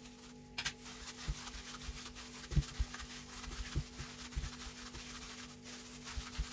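Gloved hands kneading mashed boiled potato and cheese into a dough in a stainless steel bowl: soft rubbing and pressing of the dough, with irregular dull knocks as it is pushed against the bowl.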